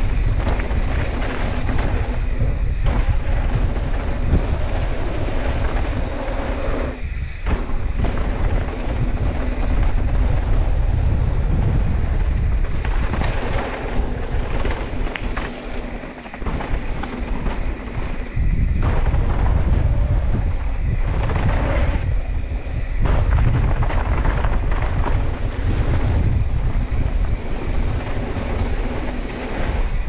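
Wind buffeting the camera's microphone at downhill speed, mixed with the rumble of mountain-bike tyres rolling over hardpacked dirt. The rush eases briefly about seven seconds in and again around sixteen seconds in.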